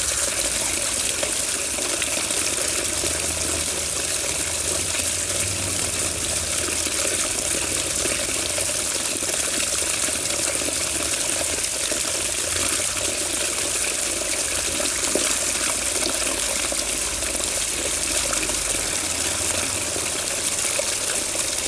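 Water running steadily in an even, unbroken stream of splashing noise.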